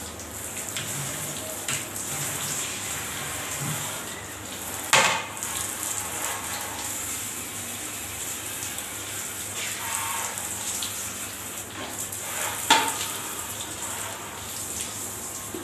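Handheld bidet sprayer hissing as it sprays water over a toilet bowl and seat. Two sharp knocks cut through it, one about a third of the way in and a louder one near the end.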